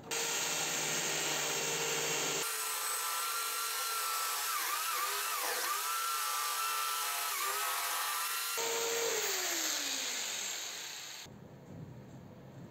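Handheld electric jigsaw cutting through a pine board, its motor pitch dipping and wavering as the blade loads in the wood. Near the end the saw is released and the motor winds down with a falling whine.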